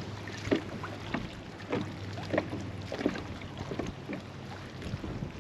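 Small fishing boat on the water: a low steady hum with scattered light knocks and taps against the hull.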